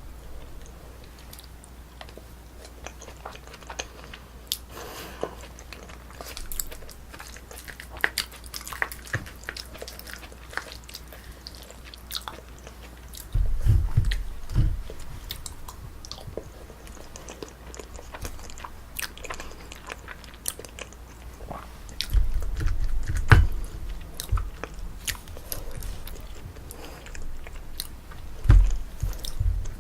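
Close-miked eating of Korean braised spicy chicken: chewing and biting with wet mouth clicks and a few soft crunches. Several deep thumps come in three spots, about a third of the way in, after two-thirds, and near the end.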